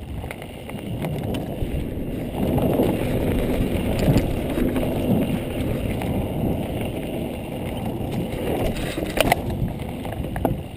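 Mountain bike ridden fast down a dirt trail: a steady rumble and rattle from the tyres and bike over the ground. It grows louder about two seconds in, and there is a sharp knock about nine seconds in.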